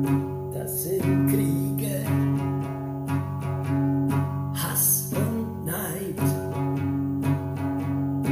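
Acoustic guitar strumming chords in a steady rhythm, an instrumental passage between sung lines.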